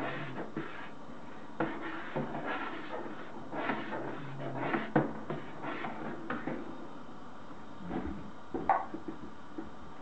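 Stirring in a large stainless steel stockpot of hot soapy liquid, with irregular knocks and scrapes of the stirring utensil against the pot's sides, as soda crystals are stirred in to dissolve.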